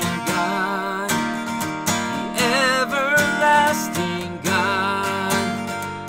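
A voice singing long held notes with vibrato over a strummed acoustic guitar.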